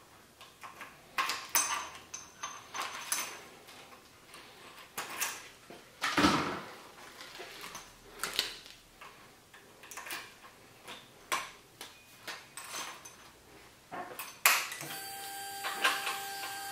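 Scattered light clicks and knocks, then near the end a click and a steady electric whine as a 2020 Triumph Street Twin's ignition is switched on without starting the engine: the fuel pump priming, a sign that the bike still powers up with the new battery tender lead fitted.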